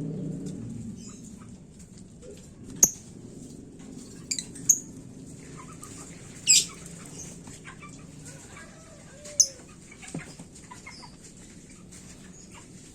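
Lovebird giving short, shrill, high-pitched calls, about five spaced a second or more apart, the loudest about six and a half seconds in.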